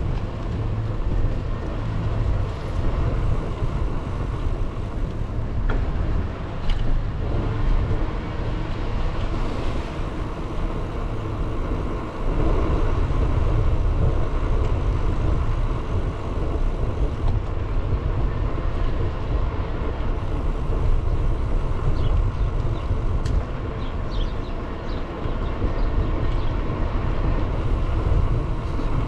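Steady low rumble of wind buffeting the microphone and wheels rolling during a bicycle ride, with a few faint clicks.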